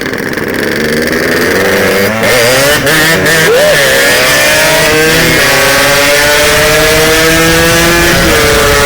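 Yamaha RX-King two-stroke single-cylinder motorcycle engine running hard under full throttle while riding. Its pitch climbs steadily, then drops briefly near the end at a gear change.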